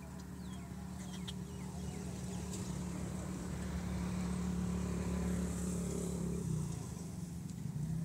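Motor vehicle engine running with a steady hum that grows louder as it approaches, then stops abruptly about six and a half seconds in; a similar hum starts again near the end.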